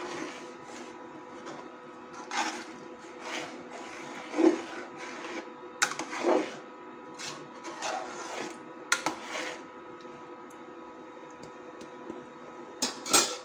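Metal ladle stirring and scraping in an aluminium pot of thick lentil-and-bean curry, giving irregular scrapes and knocks against the pot, with a sharper knock near the end. A steady faint hum from the electric cooktop runs underneath.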